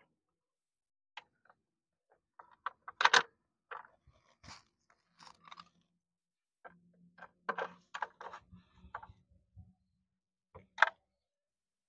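Scattered clicks and knocks of a Yamaha RX100's side panel being handled and fitted back onto the motorcycle, with a sharper knock about three seconds in and another near the end.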